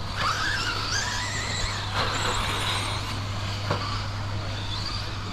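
1/10-scale 2WD modified racing buggies running on a dirt track, their electric motors whining up and down in pitch as they speed up and slow down. A steady low hum sits underneath.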